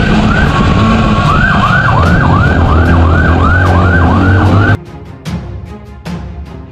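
Police motorcycle siren sounding over the bike's engine hum: first a held tone, then a fast yelp sweeping up and down about three times a second. About two-thirds of the way through it cuts off suddenly, leaving quieter knocks and rustling.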